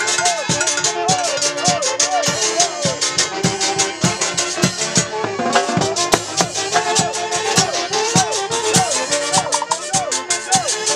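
Andean dance orchestra playing upbeat music: a repeating, arching melody line over a steady percussion beat.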